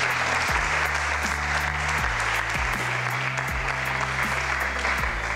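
Audience applauding, over background music with a steady beat.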